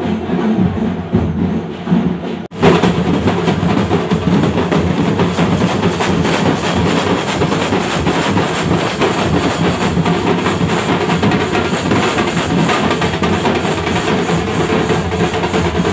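A street drum troupe playing large stick-beaten drums together in a dense, continuous rhythm. There is a brief cut in the sound about two and a half seconds in, after which the drumming fills the rest.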